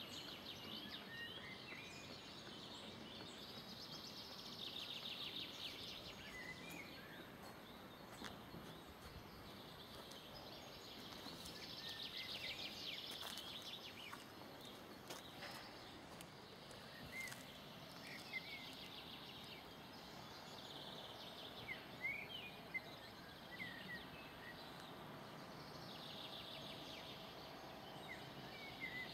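Songbirds singing over a faint steady outdoor background: short trilled phrases recur every several seconds, with scattered brief chirps in between.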